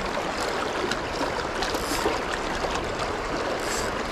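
Fast river riffle water rushing steadily around the wading angler.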